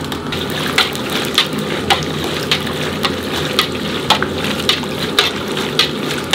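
Fuchka (pani puri) puris deep-frying in hot oil in a kadai: a steady sizzle. A ladle stirring and turning them knocks against the pan about twice a second.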